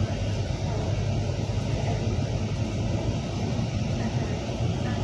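Double-decker bus driving along a highway, heard from inside the upper deck: a steady engine drone with road noise.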